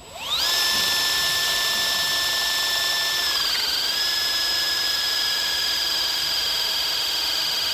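Ilsco electric hydraulic crimping tool's pump motor running as it builds pressure to crimp a sleeve onto MI cable: a steady high whine that spins up quickly at the start and dips briefly in pitch about three and a half seconds in as the load comes on.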